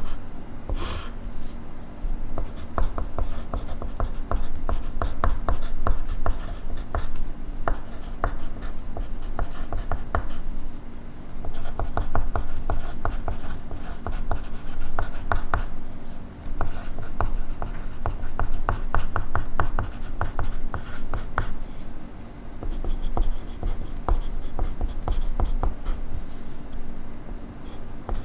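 Graphite pencil writing on paper: quick, continuous scratchy strokes, with brief lifts of the pencil about 16 and 22 seconds in.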